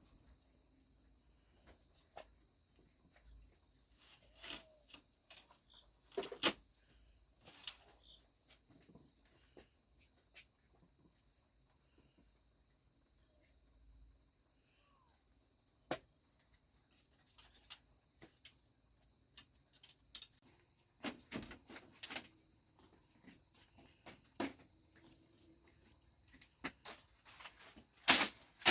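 Insects chirring in a steady high drone, with scattered short knocks and clicks that come more often in the second half.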